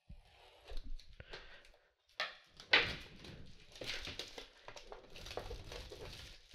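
A tablet's retail box being handled and opened: irregular scraping and rustling of the packaging with a few sharp knocks, the loudest about two and three seconds in.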